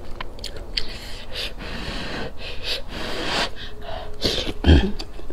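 A person slurping noodles from a bowl of soup in long, airy sucking draws, with a short, louder burst near the end.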